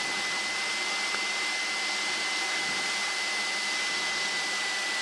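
Steady rushing noise of a light aircraft's engine and airflow in flight, heard through the headset intercom, with a thin steady high-pitched whine.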